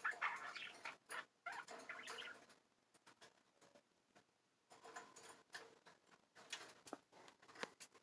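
Pet budgies, faint: soft budgie chatter in the first couple of seconds, then scattered small clicks and scratches.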